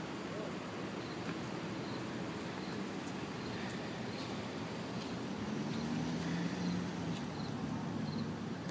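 Steady outdoor traffic noise, with a vehicle engine hum swelling a little from about five and a half to seven and a half seconds in.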